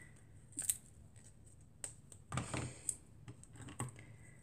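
Handling noises of paper-crafting at a cutting mat: a few short clicks and rustles as a roll of foam tape is handled and a small piece is worked off it, the busiest stretch a little past halfway.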